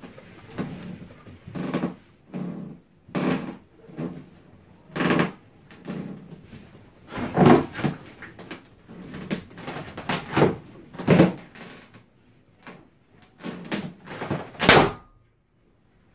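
Inflated latex balloons being grabbed and rubbed against one another and the fursuit, giving a string of short rubbing and squeaking rustles about once a second, which stop near the end.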